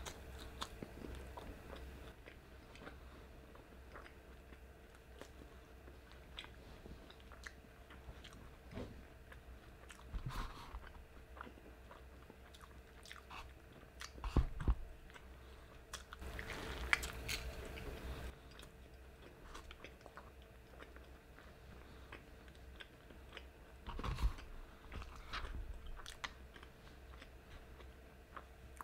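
Close-miked chewing and biting of crispy fried chicken, with soft crunches and a few louder bites spread through.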